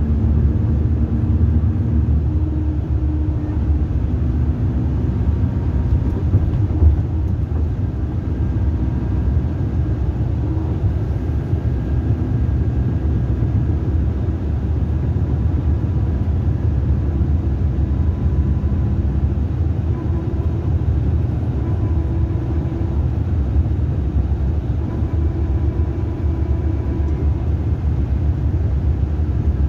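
Mercedes-Benz coach heard from inside its passenger cabin: a steady low engine and road rumble, with a faint hum that shifts a little in pitch now and then.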